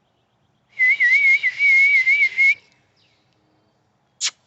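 A person whistling one wavering note for about two seconds. A short harsh call sounds near the end.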